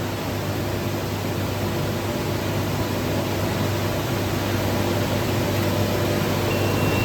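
Steady rushing noise with a low hum from the carbonization furnace's air blower and lit LPG burners running. A short high beep sounds near the end.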